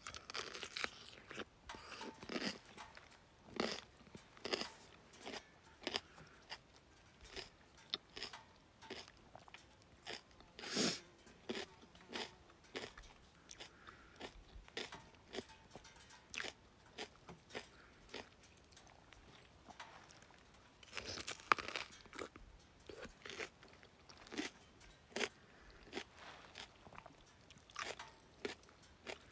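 A person biting into and chewing crisp raw cucumber: a long run of irregular, sharp, wet crunches, with a few louder bites along the way.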